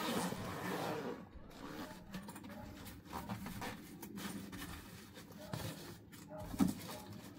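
Zipper on a soft fabric carry case being pulled open, loudest in the first second, followed by faint rustling and small clicks as the lid is lifted and the bag handled.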